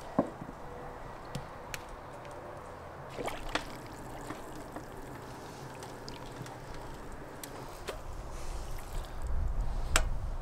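Meat broth boiling and sloshing in a large cauldron as a ladle stirs it, with a few sharp clinks and knocks, the loudest near the end.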